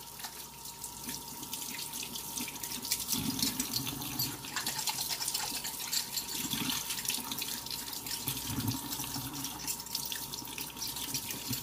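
Kitchen sink faucet running steadily while hands are washed under the stream, the splashing swelling now and then as the hands move through the water.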